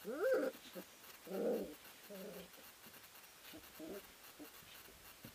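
Three-week-old Eurohound puppies whining and yipping as they wrestle. There is a rising whine at the start, then a couple of shorter yips and some fainter squeaks, over faint rustling of wood-shaving bedding.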